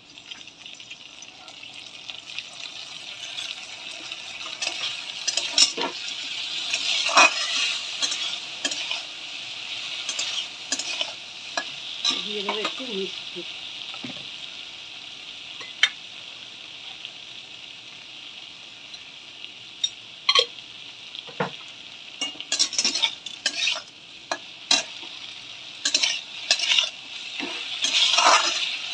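Okra, onion and mustard-poppy seed paste frying in hot oil in a steel karai: a steady sizzle that swells over the first few seconds as the paste goes in. A metal spatula scrapes and clinks against the pan as the mix is stirred, most often in the second half.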